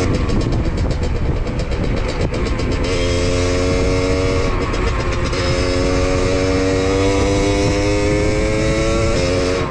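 Beta RR 50 enduro's 50cc two-stroke engine running under way, its pitch climbing slowly with a short dip about four and a half seconds in, under constant wind rush on the microphone.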